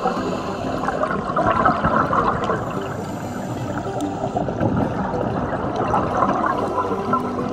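Underwater bubbling and gurgling of scuba divers' exhaled breath from their regulators, heard underwater, coming in irregular surges.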